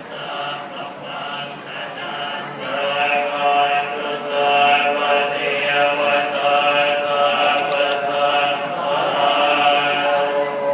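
Buddhist monks chanting Pali verses in unison, a steady chant of long-held notes that grows louder about two and a half seconds in.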